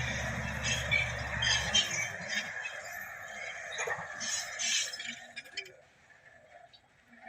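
Shantui SD16 bulldozer's diesel engine running, cut off sharply about two seconds in. Intermittent squeals and clinks follow, dying away to near quiet near the end.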